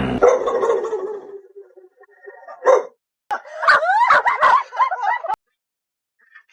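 A dog vocalizing: a drawn-out grumbling call trails off over the first second and a half, then a short yip, then about two seconds of wavering, rising whine-like howling that cuts off abruptly.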